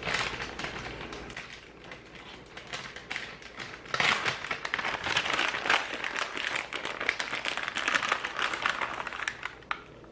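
Plastic bag of shredded cheese crinkling in irregular crackles as it is handled, loudest from about four seconds in until just before the end.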